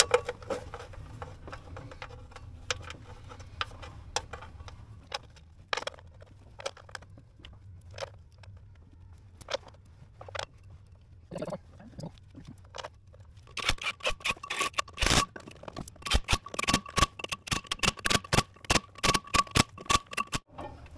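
Metallic clicks, taps and scrapes of tools and bolts being worked around a dozer's flywheel housing and torsional damper. They are sparse at first, then from about two-thirds of the way in come a quick, irregular run of clicks over a faint steady high hum.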